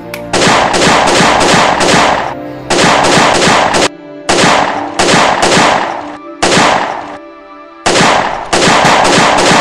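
Gunfire sound effects: rapid bursts of automatic fire, each a second or two long with short gaps between, over background music.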